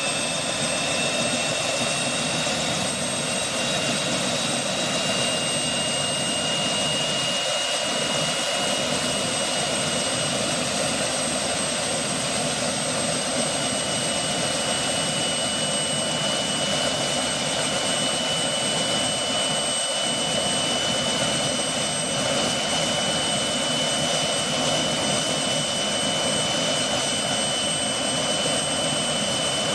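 Bell 206B-III JetRanger helicopter's Allison 250 turboshaft engine running steadily, a high turbine whine over a dense rushing noise. The whine steps slightly higher in pitch about three seconds in.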